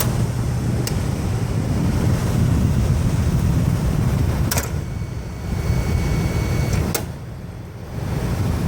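1964–65 Fedders 8,000 BTU Weather Wheel air conditioner running: a steady low hum and rush of fan noise, with a few sharp clicks about 1, 4.5 and 7 seconds in.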